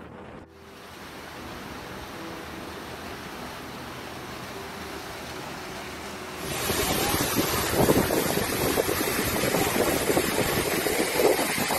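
A steady low hiss, then from about six and a half seconds in a much louder, gusty rush of noise: fast-flowing floodwater with wind buffeting the phone's microphone.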